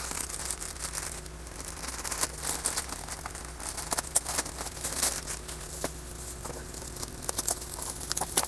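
Plastic courier mailer bag being torn open by hand, then a bubble-wrapped package crinkling as it is pulled out and handled, with many irregular sharp crackles.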